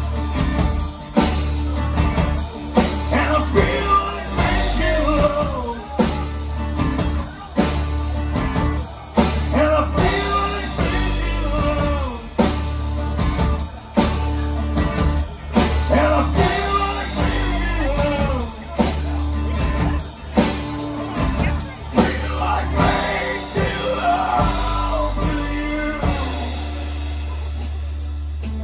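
Live rock band playing through a PA: a singer over strummed acoustic guitars, bass and a steady drum beat. The sung line ends near the end while the band keeps playing.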